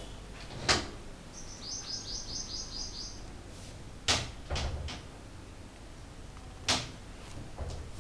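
A bird chirping in a quick, even run of about eight short high notes, with a few sharp knocks before and after it.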